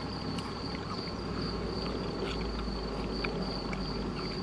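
A steady high-pitched insect trill over a low steady rumble, with a few faint clicks of chewing as people eat.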